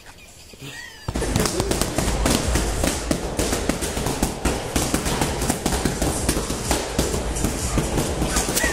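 Boxing gloves striking focus mitts in rapid, irregular smacks, with several pairs punching at once. The smacks start suddenly about a second in.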